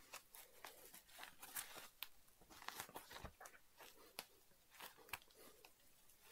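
Faint scratching, rustling and small irregular clicks of fingers handling and picking at foam and lining pieces of a cut-apart shoe, with one dull thump about three seconds in.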